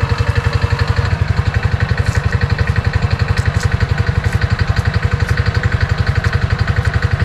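Small engine idling steadily, its firing pulses beating fast and even.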